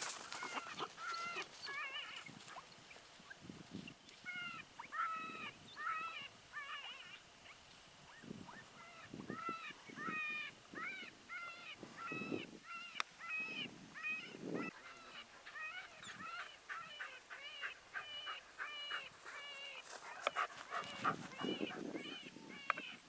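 A dog whimpering and whining in short, high, repeated cries, about two or three a second in runs, with a few soft low thumps in between.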